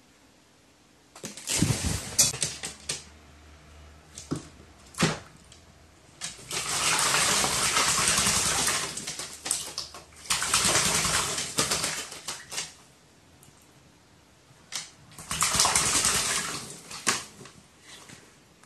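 Crow bathing in a water dish, splashing water with its wings in four bursts of one to three seconds each, with a few sharp taps between them.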